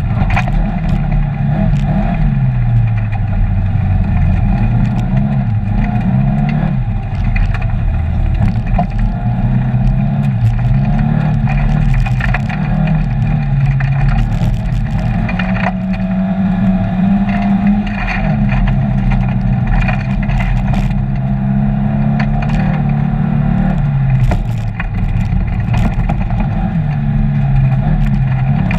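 Rally car engine heard from inside the cabin, revving hard and dropping back again and again through the gears on a gravel-and-tarmac stage, with scattered sharp ticks of gravel striking the car.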